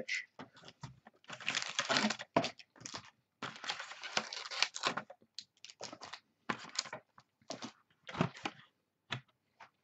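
Hands opening a 2013 Bowman Sterling trading-card box: irregular crinkling and rustling of plastic wrap and cardboard packaging, broken by sharp clicks and short pauses.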